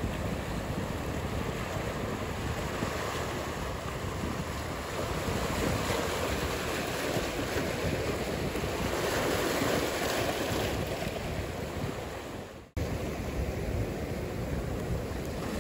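Ocean surf washing steadily, mixed with wind noise on the microphone. It swells in the middle, then cuts out abruptly for an instant about thirteen seconds in before resuming.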